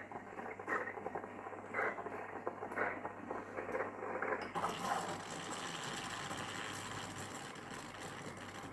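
Silvercrest SEM 1100 C3 espresso machine's steam wand frothing milk. Irregular sputtering and gurgling for the first few seconds, then a steady hiss from about halfway through.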